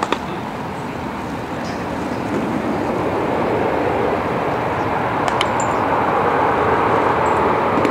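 Rushing noise of passing traffic that builds gradually over several seconds, with a sharp click right at the start.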